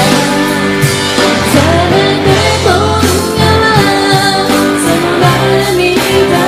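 A woman singing a pop-rock song with band accompaniment, guitar among the instruments, over a steady beat.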